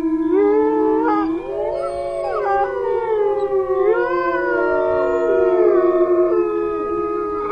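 Several dogs howling together, long overlapping howls sliding up and down in pitch.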